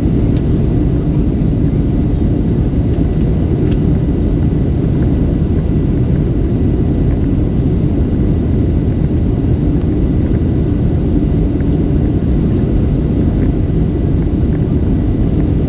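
Steady low roar of a Boeing 737-700's jet engines and airflow, heard inside the passenger cabin.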